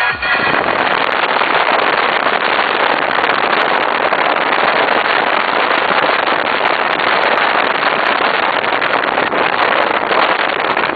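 Steady rushing road and wind noise from a moving car, with no engine note standing out.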